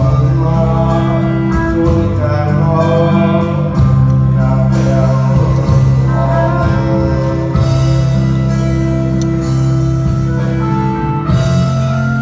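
Music with singing over sustained bass notes.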